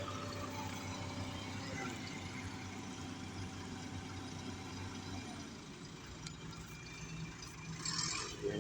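Excavator's diesel engine running steadily. Its note drops and settles into a lower pitch about five and a half seconds in, and a brief rush of noise comes near the end.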